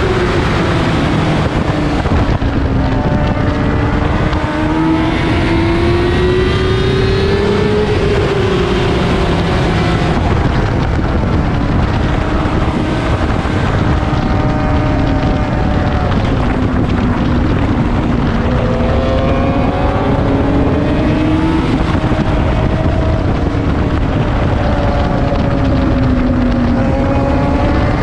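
Sport motorcycle engine at track speed, its pitch rising and falling several times as the throttle is opened and closed through the corners, over constant wind rush.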